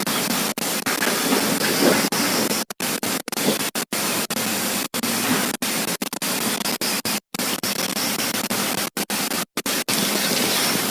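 Steady hiss of heavy rain, broken again and again by split-second dropouts in the sound.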